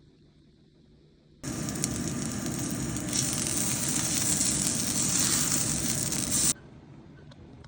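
Food frying in a hot pan, a dense sizzle that starts suddenly about a second and a half in, grows a little louder halfway through, and cuts off suddenly about five seconds later.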